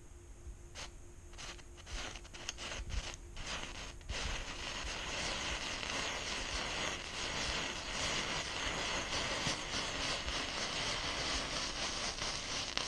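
Indoor table firework ("Bursts") going off: sharp crackles that come faster as the fuse burns down, then about four seconds in the fountain catches and gives a steady high hiss of spraying sparks.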